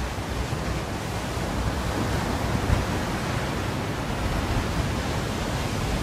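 Sea surf washing onto a sandy beach in a steady rush of noise, with wind gusting across the microphone; the wash swells slightly about two seconds in.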